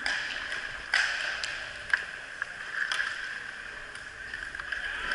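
Inline hockey play: a steady rolling whir of inline skate wheels on the plastic sport-court floor, broken by a handful of sharp clacks of sticks and puck, the loudest about two seconds in.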